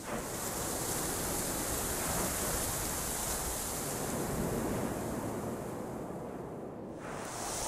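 Wind blowing in a steady rushing hiss, thinning for a moment near the end.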